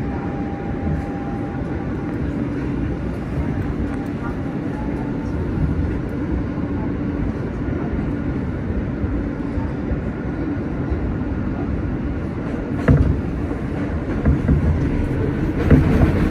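Interior ride noise of an R160B subway car with Siemens propulsion running at speed on an elevated track: a steady rumble of wheels on rail with a faint motor hum. There is a single sharp knock about 13 seconds in, and the noise grows louder near the end as the train enters a steel truss structure.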